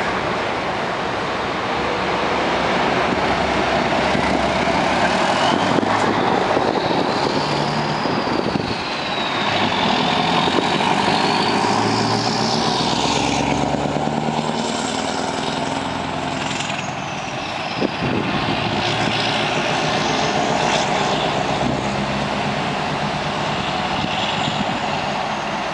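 Scania R500 truck's V8 diesel engine pulling a loaded refrigerated trailer away, driving past close by and then down the road, its engine note rising and falling as it works through the gears.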